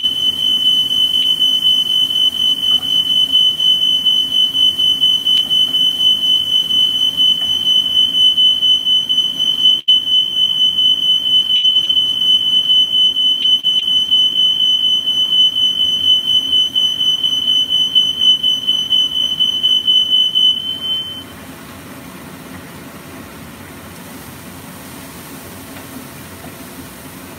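Smoke alarm sounding one steady high-pitched tone, cutting off suddenly about 21 seconds in.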